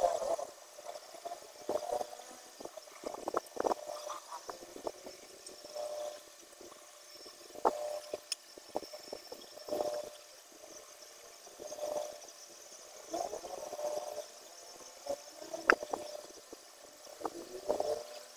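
Glue being brushed and dabbed onto a subwoofer speaker's cone around the voice coil: short, irregular brushing strokes with a few sharp clicks.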